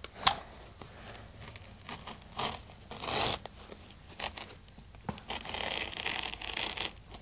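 Carpet wall trimmer slicing through carpet along the baseboard: a rough tearing in uneven strokes, loudest about three seconds in.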